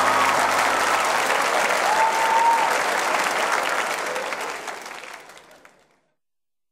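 Theatre audience applauding, fading away to silence near the end.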